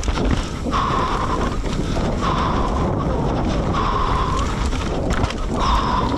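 An electronic beeper sounding a single steady tone, repeating about every second and a half, each beep under a second long, over wind buffeting on the microphone and a low rumble.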